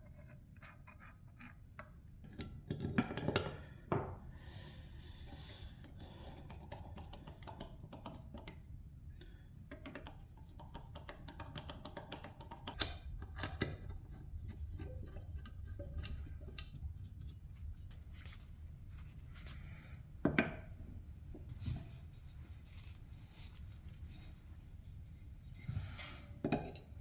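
Hand-work on metal tool parts: light rubbing and scraping strokes broken by scattered clicks and knocks as pieces are handled and set down, the sharpest knocks about three seconds in, about twenty seconds in, and near the end.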